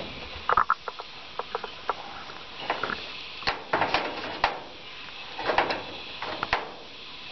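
Hand wire strippers working the end of a solar panel cable: a string of sharp clicks and short scraping snips, irregular, with clusters about half a second in, around three and a half to four and a half seconds in, and near the end.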